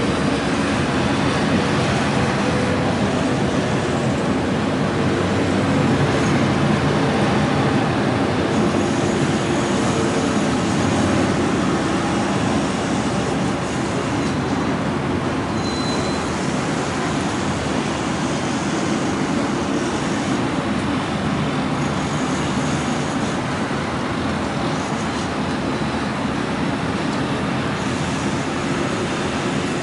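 Steady city traffic noise: a continuous rumble of vehicles with a faint engine hum underneath, and a brief high tone about halfway through.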